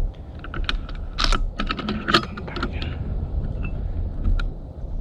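A quick, irregular run of sharp clicks and snaps over a steady low rumble.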